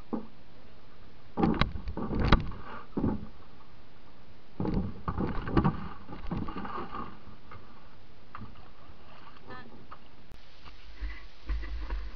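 Canoe handling sounds: paddle strokes splashing, with knocks against the hull, in two clusters a couple of seconds apart. A low rumble comes in near the end.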